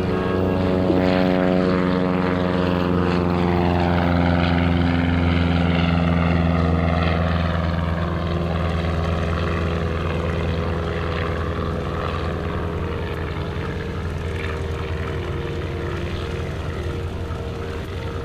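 Single-engine Cessna high-wing's piston engine and propeller at climb power just after takeoff. The drone drops in pitch over the first several seconds as the plane passes, then slowly fades as it flies away.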